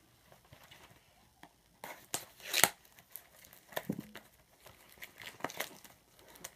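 Packaging of a trading card box being torn open, with crinkling wrapper: a quiet start, then a run of sharp tearing and crackling rustles from about two seconds in.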